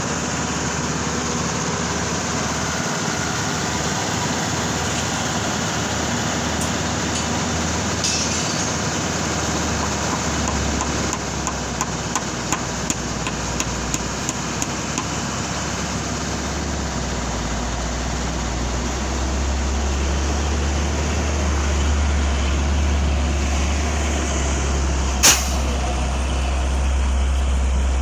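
Heavy vehicle engines running steadily at a road works site. A run of light ticks comes around the middle, a deeper engine rumble grows louder in the last third, and there is one sharp click near the end.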